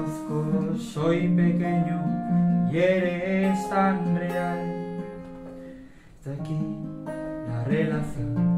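Acoustic guitar played live, chords strummed and picked, fading briefly about six seconds in before the playing picks up again.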